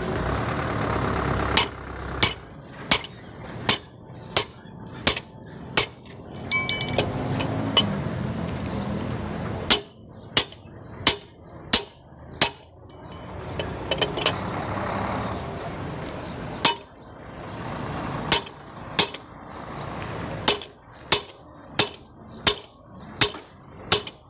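Hammer striking the handle of a lug wrench to tighten a truck's wheel nuts: sharp metallic clanks about every 0.7 s, in three runs. A low rumble fills the pauses between the runs.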